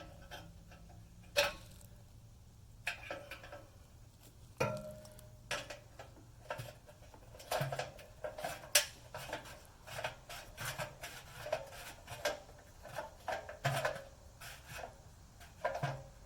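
Irregular metal clinks and knocks, a few ringing briefly, as metal parts are handled and fitted together.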